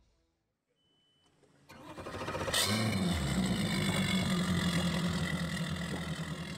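Near silence, then an engine sound effect: a rising crank from about a second and a half in that catches sharply a second later and settles into a steady low idle that slowly fades.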